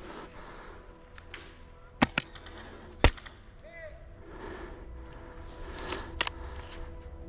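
Airsoft guns firing: a pair of sharp cracks about two seconds in, a louder single crack about a second later, and another crack near six seconds.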